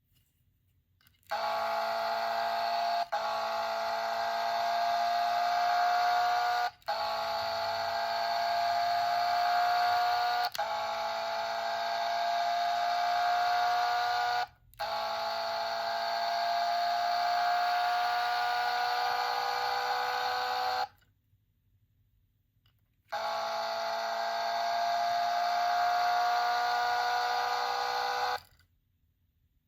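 Car-sound gachapon toy playing a buzzing electronic sound effect through its tiny speaker: a steady pitched tone whose pitch creeps up slightly, repeated in long stretches with brief breaks every few seconds and a two-second pause about two-thirds through.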